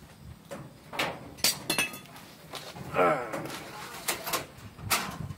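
Clunks and knocks of a large, tall box being tipped, lifted and shoved into an SUV's rear cargo area, several separate impacts with a brief rattle just before two seconds in. A short strained voice sound, like a grunt of effort, comes about three seconds in.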